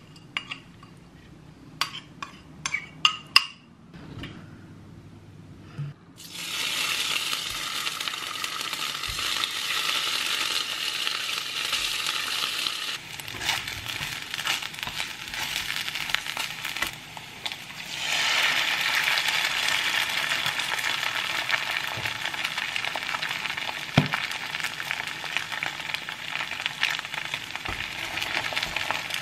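A spoon clinks several times against a ceramic bowl and glass jar. About six seconds in, steady sizzling starts as pieces of turnip cake pan-fry in oil in a nonstick frying pan; it weakens for a few seconds in the middle and is loud again from about eighteen seconds, with an egg frying alongside.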